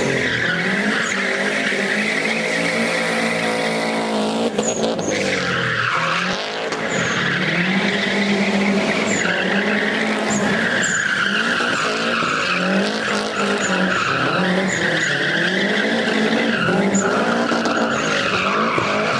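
Subaru Impreza rally car's turbocharged flat-four engine revving up and down again and again as the car slides through turns, with its tyres squealing.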